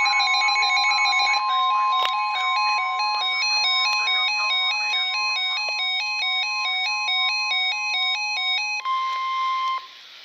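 Emergency alert warning tone: one steady alarm tone, with a beeping electronic melody of quickly alternating pitches laid over it. The melody stops about nine seconds in, and the steady tone carries on alone for about a second before it cuts off.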